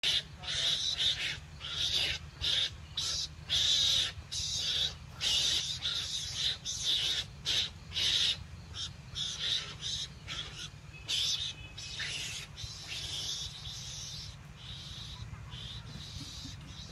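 Mongoose lure call: a recorded animal call of rapid high calls, several a second, that thin out and grow fainter after about twelve seconds, over a steady low hum.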